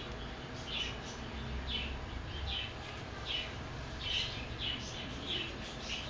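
Purple sunbird chirping: short, high, slightly falling chirps, about ten of them at an uneven pace of one or two a second.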